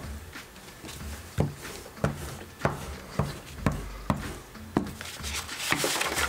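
Glue stick dabbed and rubbed on paper over a cutting mat: a run of light taps, roughly two a second, then a short rustle of paper near the end.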